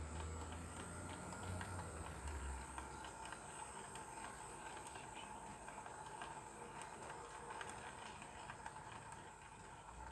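HO-scale model train running on sectional track, with many small clicks from the wagon wheels over the rail joints and a faint steady motor whine. A low hum fades out about three seconds in.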